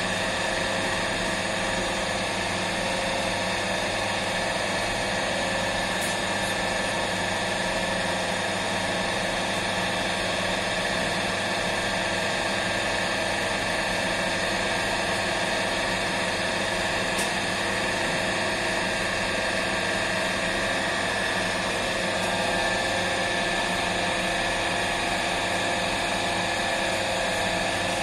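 Commercial bakery dough mixer running steadily, its motor and gearing giving a constant machine hum as the mixing arm churns through a bowl of flour at the start of mixing the dough.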